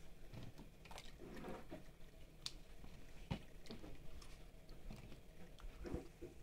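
Faint wet clicks and knocks of cubed zucchini being scooped out of a bowl of water and dropped into a plastic colander, with small splashes of the water.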